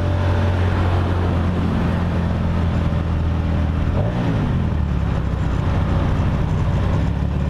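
Kasinski Comet GTR V-twin motorcycle engine and exhaust running steadily under way, with the engine note shifting lower about four seconds in, under a steady rush of wind noise.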